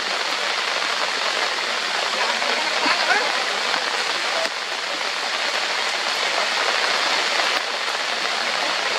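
Steady heavy rain falling on forest leaves, an even hiss throughout, with a few faint short chirps about three seconds in.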